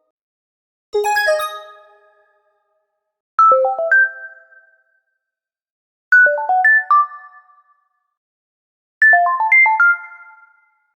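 Four short electronic chime jingles, about two and a half seconds apart. Each is a quick run of three or four bell-like notes that rings and fades, and each sits a little higher in pitch than the one before.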